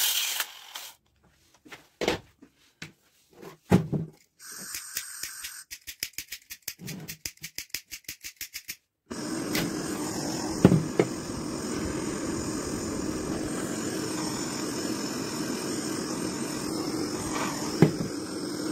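A handheld polishing wheel stops running in the first second, followed by scattered clicks and a quick run of ticks. About nine seconds in, a gas-cartridge blowtorch burns with a steady hiss, broken twice by a sharp knock.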